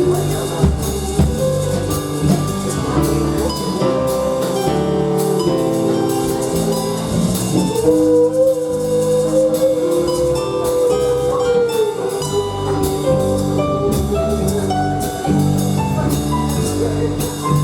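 Live band music: drum kit and bass keep a steady groove under pitched melodic parts, with one long held note in the middle.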